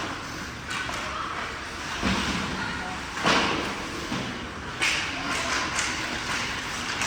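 Ice hockey play in a rink: sharp knocks of sticks and puck against the ice and boards, several spread out, with some voices in the background.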